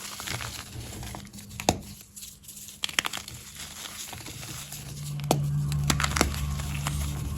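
Gym chalk blocks being crushed, crunching and crumbling with scattered sharp cracks and snaps.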